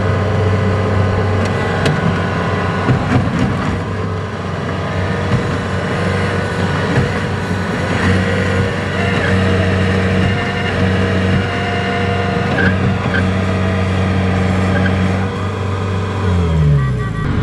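Kubota combine harvester's diesel engine running steadily under load, its note dropping near the end as it is throttled back.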